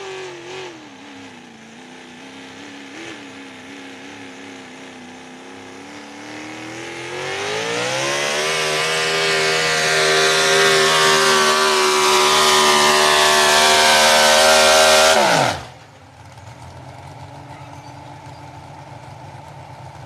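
Big-block Chevrolet engine of a pro stock four-wheel-drive pulling truck under full pulling load. For the first six seconds it runs low in the revs, way down in the basement, where it makes little horsepower. It then climbs over about two seconds to a steady high rev, held for about seven seconds before dropping away abruptly to a low idle.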